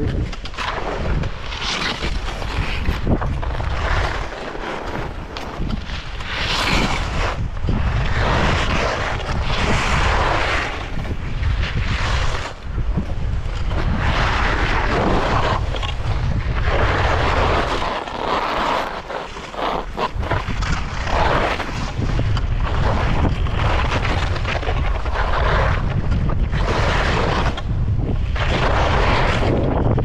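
Skis scraping and skidding over icy, hard-packed snow in repeated surges, one with each turn. A steady low rumble of wind buffets the camera microphone throughout.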